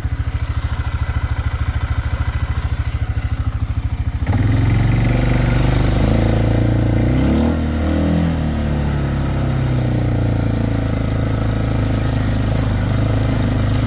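Four-wheeler (ATV) engine idling with an even chugging pulse. About four seconds in it suddenly gets louder as the engine is throttled up, its pitch rising and falling around the middle, then it runs on steadily under way.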